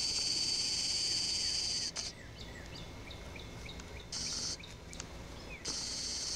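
A loud, high-pitched buzzing hiss that cuts in and out: a long stretch that stops about two seconds in, then two shorter bursts later on, like insects calling. In the gap between, a bird gives a string of short, falling chirps, about two a second.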